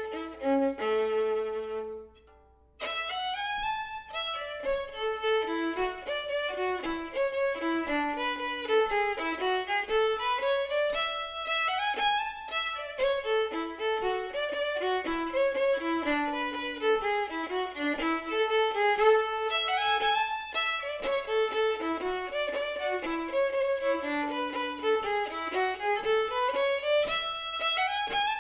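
Solo fiddle playing a reel in A major at a slow tempo, one bowed note after another. A brief pause about two seconds in, then steady playing.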